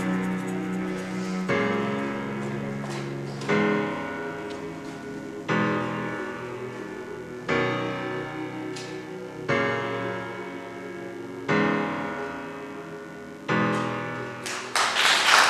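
Slow piano music: a chord struck about every two seconds, each one dying away before the next. Audience applause breaks out near the end and is the loudest sound.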